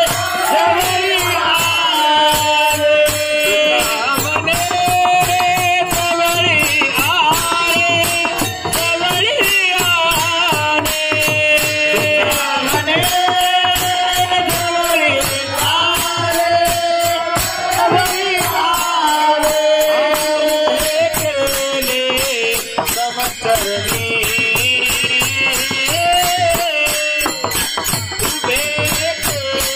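Marathi Warkari devotional singing: a lead voice through a microphone, with others singing along, over many pairs of small brass hand cymbals (taal) clashing in a steady rhythm and a two-headed barrel drum (mridang).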